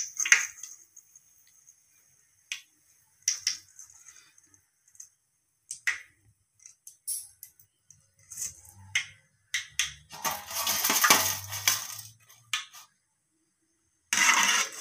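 Wire frying skimmer clinking and scraping against an aluminium kadai while a crisp, fully fried nest of omapodi (besan sev) is lifted and drained: scattered sharp clicks, with a couple of seconds of dense crunchy rustle about ten seconds in and another short burst near the end.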